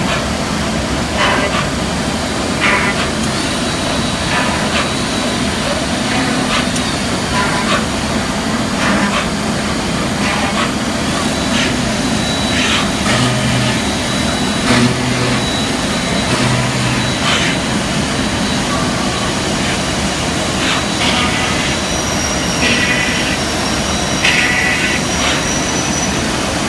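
Weeke Venture 05S CNC router running: a loud, steady machine noise with frequent short clicks and knocks, and three short low hums around the middle.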